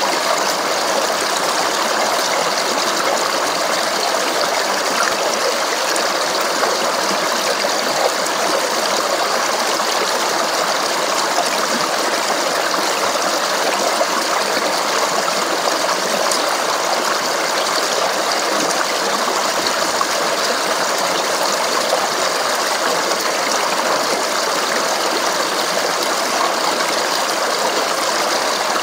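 Stream water babbling and splashing over rocks, a steady, unbroken rush with fine splashing detail throughout.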